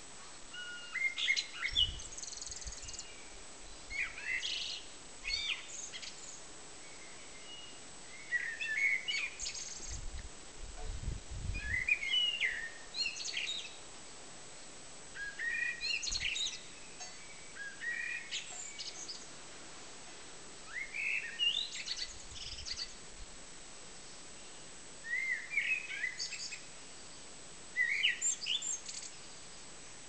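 Common blackbird singing: about a dozen short song phrases, each around a second long, with pauses of a second or two between them. Faint low rumbles sit under the song in a few places.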